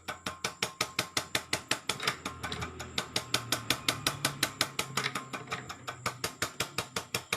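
Toyota Hilux 2.5 VNT diesel injector being run on an injector test bench, clicking rapidly and evenly at about seven ticks a second over a low hum.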